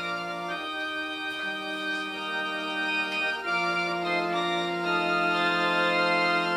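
Organ playing the introduction to a hymn: held chords that change every second or two.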